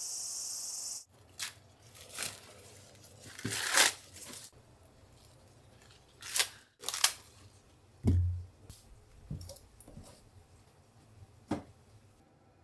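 A second of insects chirring, then fresh ears of sweet corn being husked by hand: the green husks torn and stripped off in a series of separate rips and rustles, with a dull knock about eight seconds in.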